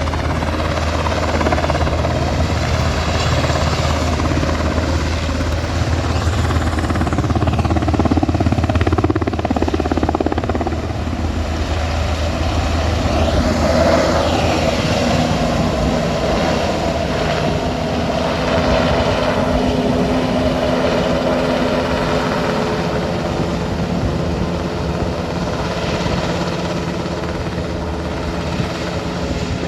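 Rescue helicopter running close by, its rotor and turbine making a loud, continuous noise. The deep low rotor beat is strongest for the first ten seconds or so and then eases off.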